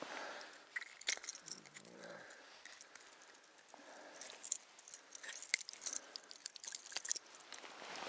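Scattered light clicks, crunches and rustles of hands handling gear and a catch on the ice, with the sharpest click about five and a half seconds in.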